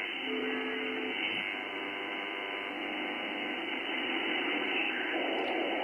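Icom IC-7610 HF receiver's speaker audio in sideband mode: a steady band-noise hiss cut off sharply above about 3 kHz, with two brief steady whistle tones of carriers near the start while tuning. The hiss is the raised noise floor of about S4 that the owner is trying to track down.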